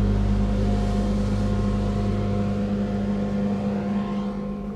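A loud machine running on the street, a steady engine drone with a deep hum and a hissing noise over it, growing fainter near the end as it moves off.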